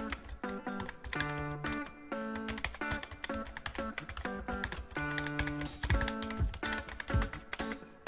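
Background music with a melody and bass line, overlaid with a rapid clicking keyboard-typing sound effect.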